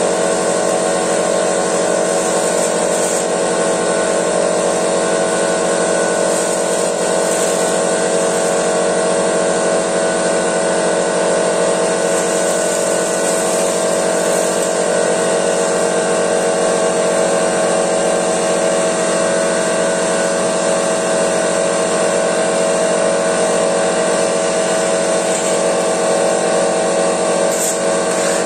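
Air compressor, of the 50-litre kind, running steadily without a break.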